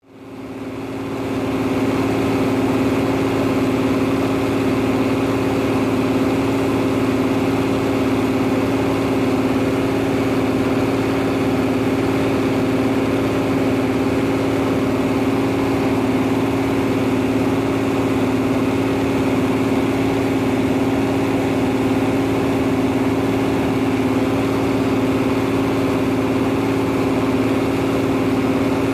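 Arbos 125 combine harvester's Perkins six-cylinder diesel running steadily with its threshing gear and unloading auger, grain pouring into a trailer. A steady drone that fades in over the first second or so.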